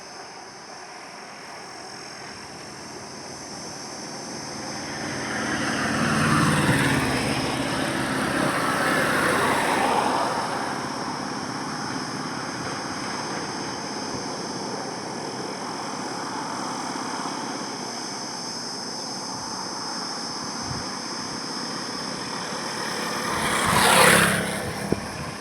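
Highway traffic with vehicles passing. One or two pass in a long swell about a quarter of the way in, then the road settles to a steady hum, and near the end a single vehicle goes by close and fast, the loudest moment.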